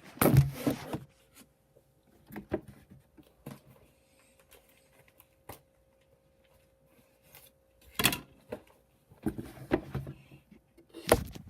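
Scattered clicks, knocks and rustles of objects being handled. The loudest bursts come at the start, about eight seconds in and again about nine to ten seconds in.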